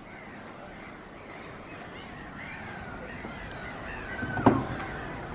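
Faint outdoor background with a single loud, short bird call with a falling pitch near the end.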